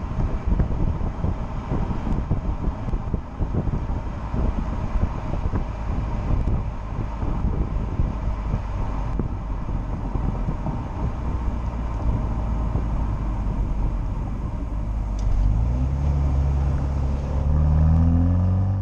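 2020 MINI JCW Countryman's turbocharged four-cylinder exhaust while driving, a low rumble over road noise. About three-quarters of the way through, the exhaust note climbs steadily in pitch and gets louder as the car accelerates, and it is loudest near the end.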